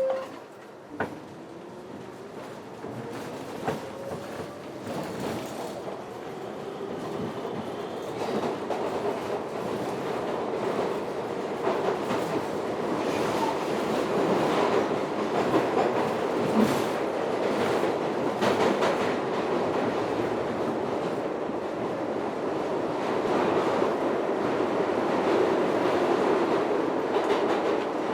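Inside a subway car as the train pulls away: the motor whine rises slowly in pitch over the first several seconds while the noise builds. It settles into the steady rumble and wheel clatter of the train running at speed, with a few sharp clicks and knocks.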